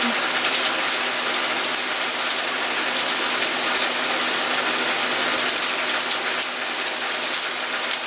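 Steady rain falling: a dense, even hiss with scattered ticks of single drops.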